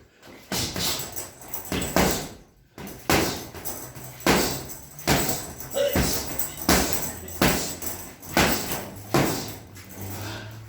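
A boxer's punches landing in a steady series, about one sharp smack a second, some ten blows in all.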